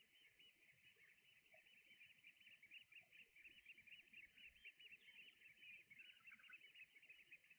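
Faint, continuous twittering of a flock of shorebirds, with many short high calls overlapping several times a second.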